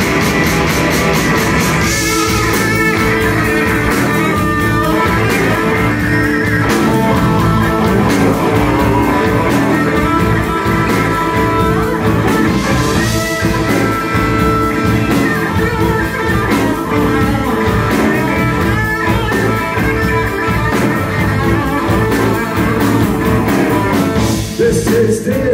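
Live blues-rock band playing an instrumental passage: electric guitars over bass guitar and a Tama Star walnut drum kit with a Starphonic snare keeping a steady beat.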